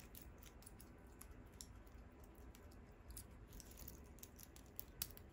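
Near silence with faint scattered clicks and light handling noise from a wristwatch and its metal bracelet being handled, with one slightly louder click near the end.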